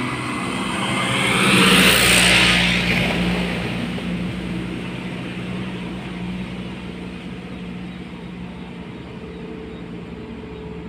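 Mitsubishi pickup truck driving past close by: tyre and engine noise swells to a peak about two seconds in and then gives way to a steady low engine hum that slowly fades.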